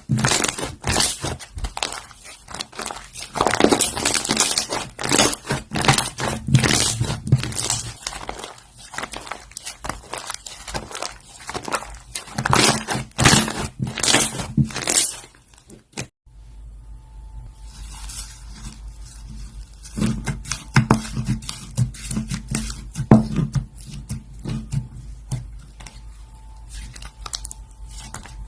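Slime being squeezed and poked by hand, a dense run of crackles and pops. About halfway through it cuts to a quieter stretch of softer crackles over a faint steady hum.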